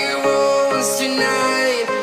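Background pop song music.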